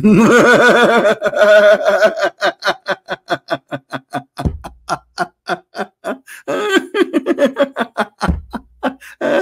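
A man laughing hard and long. He opens with a drawn-out laugh that breaks into rapid ha-ha pulses, several a second, and swells again in the second half.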